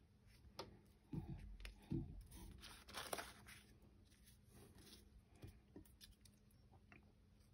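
Quiet handling sounds on a wooden tabletop: two soft knocks about one and two seconds in as small objects are set down, then a short rustle of a thin folded coffee filter being pressed and flipped over, followed by faint small clicks.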